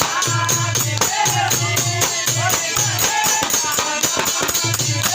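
Folk devotional music with a steady beat, jingling percussion and a pitched melodic line.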